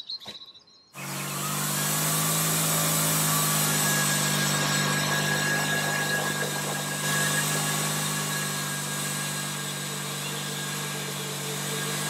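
Wood-Mizer LT30 bandsaw mill with its 18-horsepower engine running, its band blade cutting through a burr oak log. A steady engine hum and saw noise starts abruptly about a second in.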